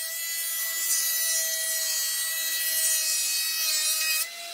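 Combination woodworking machine's planer cutterhead planing a pine board: a loud high hiss of cutting over the steady whine of the spinning cutterhead. The cutting stops suddenly about four seconds in, leaving the machine running free.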